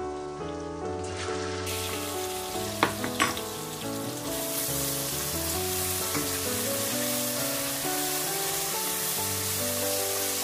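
Sliced onions and garlic sizzling in oil in a stainless steel pan, the sizzle growing stronger about a second and a half in and again after about four seconds as they are stirred. Two sharp knocks of a utensil against the pan near three seconds in, over background music.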